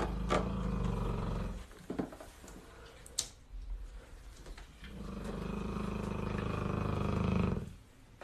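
An animal's low, rumbling growl, heard twice: the first dies away under two seconds in, the second runs from about five seconds in until shortly before the end. A sharp click falls between them.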